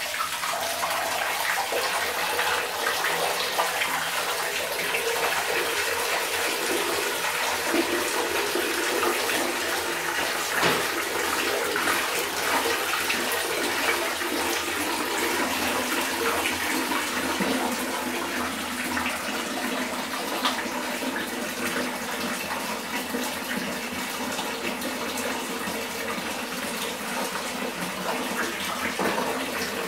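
Water running and splashing in a bathroom sink while a batch of Lego bricks is washed by hand in a plastic basin, with scattered small clicks.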